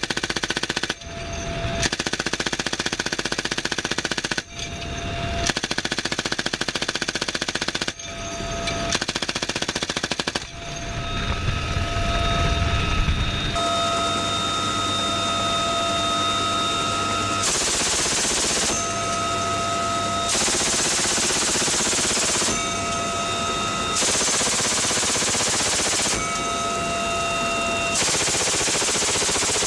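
GAU-21 .50-calibre door machine gun on a helicopter firing long, rapid bursts, cut off abruptly a few times. Later, a steady helicopter turbine whine and rotor noise run underneath, with short bursts of fire of one to two seconds every few seconds.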